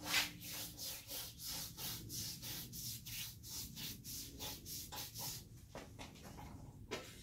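A paintbrush stroking back and forth across a wooden piano cabinet panel, brushing on grain filler. The swishes come in a steady rhythm of about two to three strokes a second.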